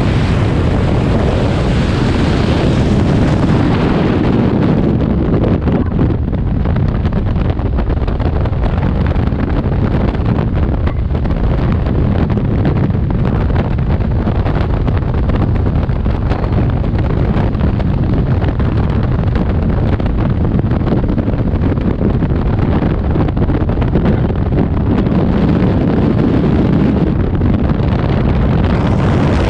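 Loud, steady rush of freefall wind blasting across a skydiver's camera microphone at terminal speed.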